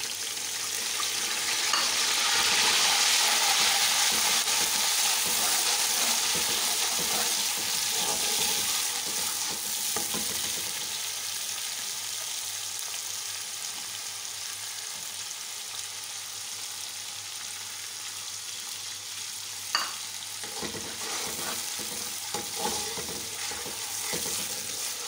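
Ginger-garlic paste sizzling as it fries in hot oil and ghee with browned onions, stirred with a metal slotted spoon in an aluminium pot. The sizzle is loudest a couple of seconds in and settles down gradually, with one sharp tap about two-thirds of the way through.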